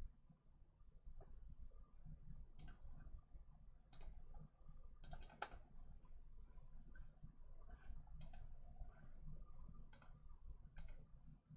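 Quiet room hum with a handful of faint, sharp clicks spaced irregularly, some coming in a quick cluster about five seconds in.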